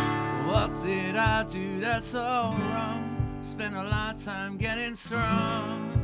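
Strummed acoustic guitar with a man singing a wavering melody line over it.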